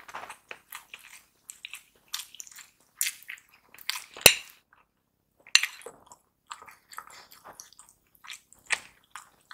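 Metal spoon scraping and clinking against a ceramic bowl while scooping rice, with close-up chewing sounds. A sharp clink about four seconds in is the loudest, and another comes a little over a second later.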